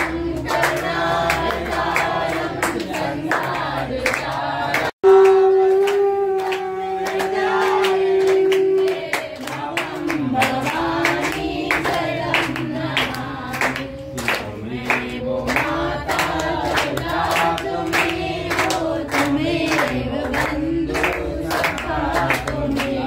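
Group of people singing a Hindu aarti together, with rhythmic hand clapping keeping the beat. About five seconds in the sound cuts out for an instant, then comes back on a long held note before the singing and clapping go on.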